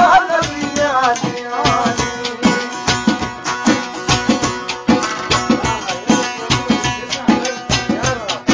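A song: a singing voice with a wavering, ornamented melody in the first couple of seconds, over drums keeping a steady beat throughout.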